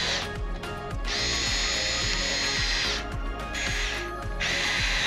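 Ryobi cordless power screwdriver whirring in four runs, the longest about two seconds, as it drives the screws that hold a front splitter in place.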